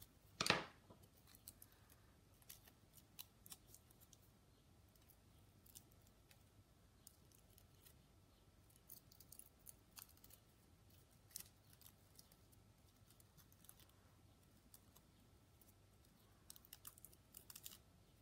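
Faint scattered clicks and ticks from small paper pieces and a craft tool being handled, with one louder knock about half a second in and quicker runs of clicks around eleven seconds and near the end.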